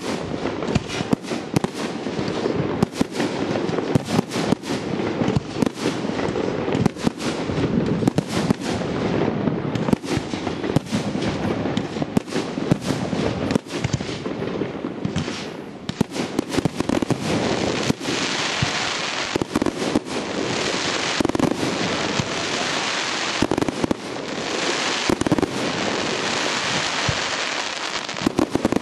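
Fireworks display: a rapid, dense run of bangs and pops from exploding shells. A brighter, hissing wash of crackle fills in from about halfway through.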